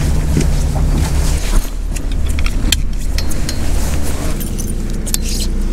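Charter boat's engine running with a steady low hum. From about two seconds in, light metallic clicks and jingles come from fishing tackle being handled.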